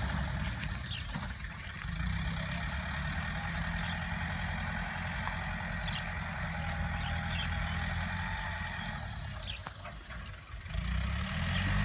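Yanmar EF453T tractor's diesel engine running steadily under load while driving a rotary tiller. It fades briefly about ten seconds in, then comes back louder near the end.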